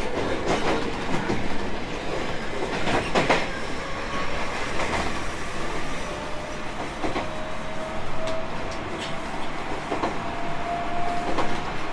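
Tobu 30000 series electric train running, heard from inside the car: steady rumble with clicks of the wheels over rail joints, and a faint motor tone rising slowly in pitch in the second half as the train picks up speed.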